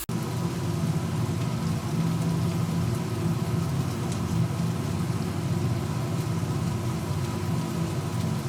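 Cut potatoes frying in hot oil: a steady, dense sizzling and bubbling, heaviest in its low rumble.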